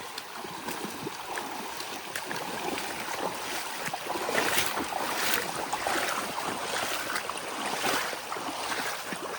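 Shallow creek water rushing, with irregular splashing as someone wades through it on foot.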